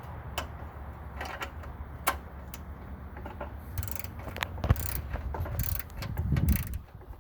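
Ratchet wrench on a socket extension worked in short clicking strokes, with scattered knocks and clicks of metal tools.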